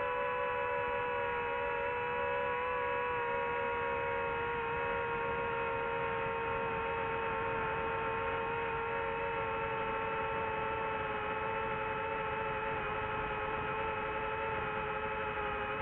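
A steady hum of several held tones that sink very slightly in pitch over a noisy background.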